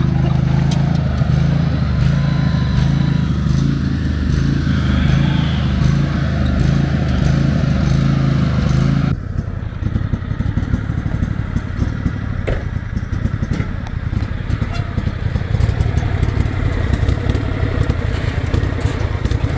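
Craftsman riding lawn mower's small engine running steadily. About nine seconds in the sound changes abruptly to a rougher, uneven engine running with scattered clicks and clatter.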